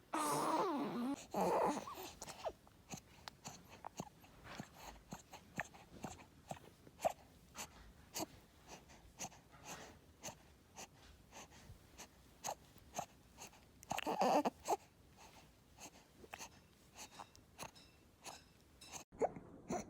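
Infant with laryngomalacia breathing noisily: a wavering, squeaky stridor in the first two seconds and again about 14 s in, with many short clicks between. Such noisy breathing is the typical sign of the floppy larynx tissue of laryngomalacia.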